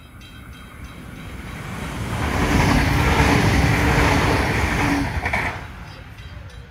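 A NSW TrainLink diesel railcar set passing through the station without stopping. The rush of wheels and engine builds to a loud peak, with a steady engine drone, as it goes by about three seconds in, then fades quickly as it draws away.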